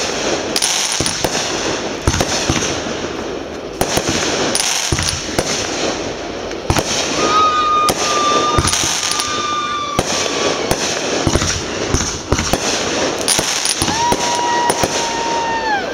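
Aerial fireworks going off in quick succession: repeated sharp bangs of bursting shells over dense crackling. Two long steady whistles rise above it, one about seven seconds in lasting some three seconds, and another near the end lasting about two seconds.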